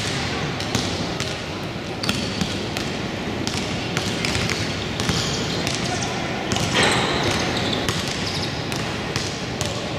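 Basketball bouncing on a gym court with scattered sharp knocks, over a steady background of crowd and player voices.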